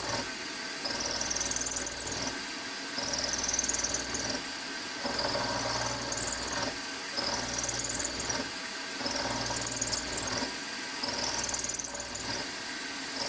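Milling machine spindle running while an end mill is pecked repeatedly into a metal conrod blank, a few thou at a time. The cutting comes in cycles about every two seconds: a low hum and a high hiss rise and fall with each peck.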